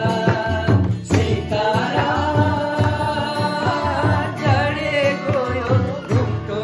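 Men singing a song together to acoustic guitar strumming and hand drums, a djembe and a rope-laced barrel drum keeping a steady rhythm.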